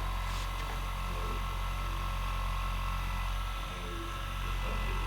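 Steady low hum of a running motor or machine, with a faint steady whine above it.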